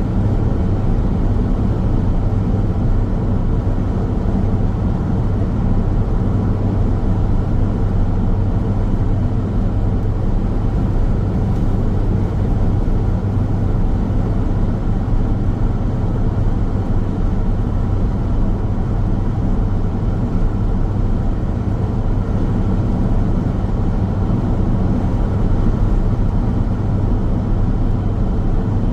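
A car driving at steady speed on a highway: constant road noise, a low rumble of tyres and engine with a steady low hum.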